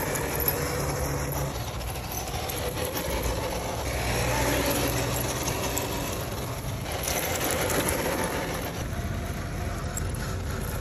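Small electric RC rock crawler driving over loose gravel: a whirring motor and drivetrain with the crunch of its tyres on stones, swelling louder twice, about four and seven seconds in.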